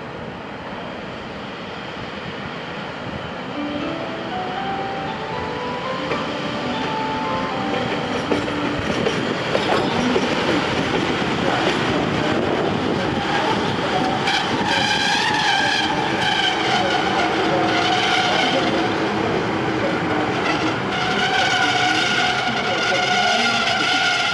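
ČD Cargo class 123 electric locomotive running light at low speed, growing louder as it approaches and passes close by. A tone climbs upward in steps a few seconds in, and steady whining tones over the rumble of wheels on rail fill the second half.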